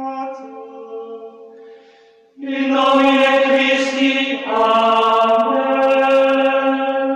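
Music with no beat: held, choir-like chords that fade down, then a louder chord enters about two and a half seconds in and changes about two seconds later.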